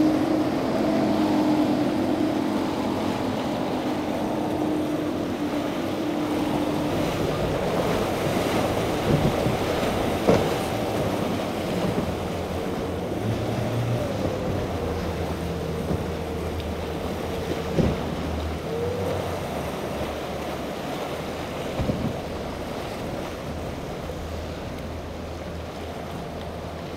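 Outboard motors on center-console boats running through choppy inlet water, their drone shifting in pitch as different boats pass. Beneath them are constant wave wash and wind on the microphone, with a few sharp thumps, the clearest about ten seconds in.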